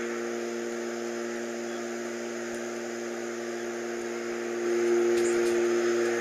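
An unidentified humming drone made of a few steady low tones over a hiss, swelling louder about four and a half seconds in. It is the mysterious rising-and-falling hum that the recordist suspects could be a failing transformer or an engine.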